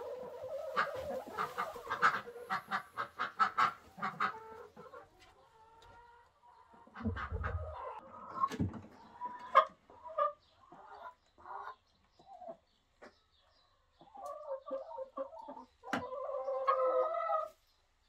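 Domestic chickens in a coop clucking: a quick run of short clucks, then scattered single clucks, and a longer drawn-out call near the end.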